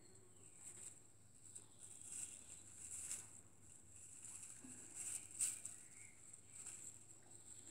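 Faint rustling and scratching of kittens' paws moving through dry hay in a plastic crate, as scattered soft taps with one sharper tap about five and a half seconds in.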